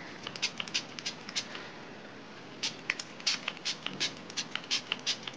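Hands working through towel-dried hair coated in leave-in product, making quick, irregular crackling clicks and rustles.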